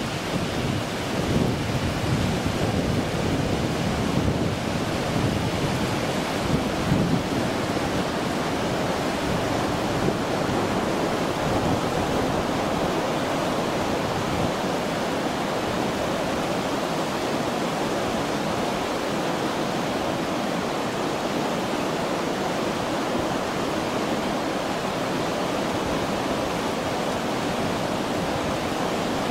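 Steady rush of the Kurobe River's flowing water, with gusts of wind buffeting the microphone through roughly the first ten seconds.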